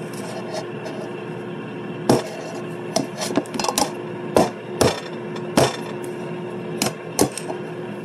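Irregular sharp knocks and scrapes of metal on a metal loaf pan, about nine in all, as a meatloaf is loosened from the pan with a butter knife and worked free.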